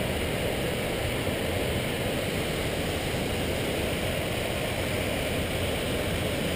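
Steady rushing noise that holds an even level throughout, with no distinct knocks or voices.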